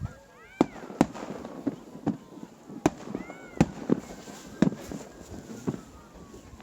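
Fireworks display: about ten sharp bangs of bursting shells in irregular succession, with faint whistling tones gliding in pitch between them.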